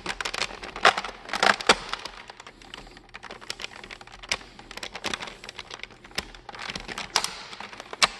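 Nerf Longstrike with an Orange Modworks Immortal spring kit being handled and primed: a string of sharp, irregular plastic clicks and clacks, loudest in the first two seconds and again near the end. The slide action is very stiff and the rear catch has trouble latching.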